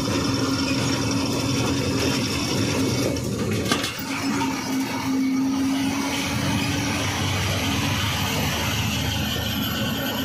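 Ashok Leyland 14-tyre truck's diesel engine running at road speed, heard from inside the cab with road noise. A steady drone that dips briefly about four seconds in, with a single knock just before the dip.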